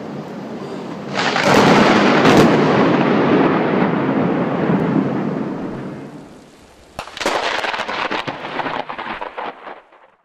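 Thunder: a sudden loud crack about a second in, rolling on and fading over several seconds, then a second sharp crack near seven seconds with crackling rumble that cuts off just before the end.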